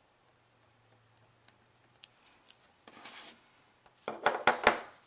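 Clear acrylic stamp block and paper card being handled on a tabletop: a short rub about three seconds in, then a quick cluster of taps and knocks near the end, the loudest part.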